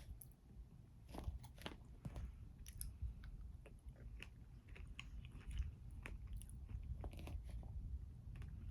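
Close-miked eating of a brownie dessert with strawberries and Greek yogurt: chewing and biting, with many irregular small wet mouth clicks.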